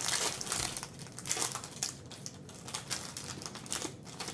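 Foil wrapper of a Panini Prizm basketball card pack crinkling and crackling as it is handled and the cards are slid out. It is loudest in about the first second, then comes in smaller crackles.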